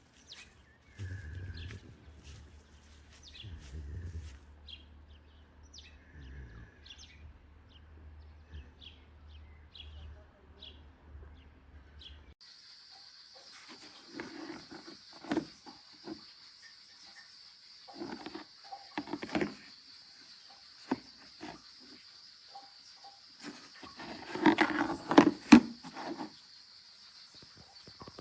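Outdoor ambience: short high chirps over a low steady hum, then after a sudden change a steady high insect-like drone with scattered knocks and thumps, loudest near the end.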